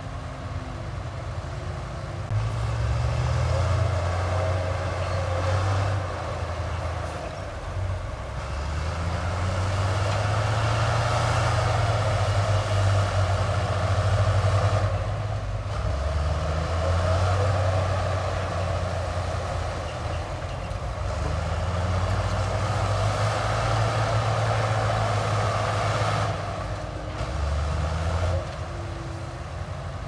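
Heavy diesel engine working, its sound swelling under load several times and easing back in between.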